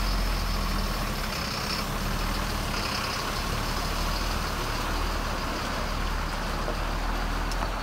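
Mercedes-Benz Axor lorry's diesel engine idling with a steady low hum, under an even hiss.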